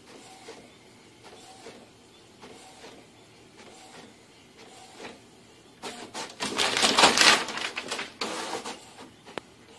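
Desktop printer printing, its print head passing with a faint whir about once a second. About six seconds in comes a loud clatter and paper rustle lasting about two seconds, then it falls back to quieter printing.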